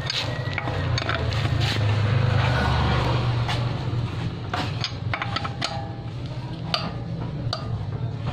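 Electric impact wrench running and hammering for a couple of seconds early on, over a steady low hum. It is followed by a few sharp metal clicks and clinks of the socket and nut being handled.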